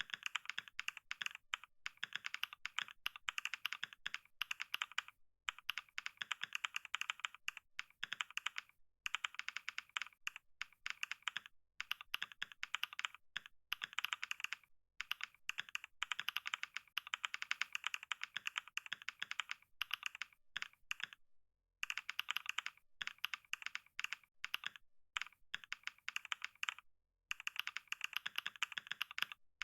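Fast typing on a computer keyboard: a rapid, continuous stream of key clicks, broken by brief pauses every few seconds.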